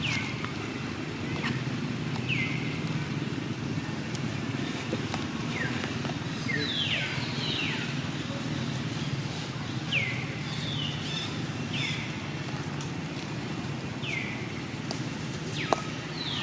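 Baby monkey crying: short, high cries that fall in pitch, repeated every second or two and sometimes bunched two or three together, over a steady low rumble.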